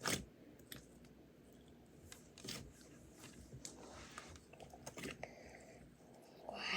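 Butter slime being squeezed and stretched by hand, giving faint, scattered sticky clicks and pops, the loudest one right at the start.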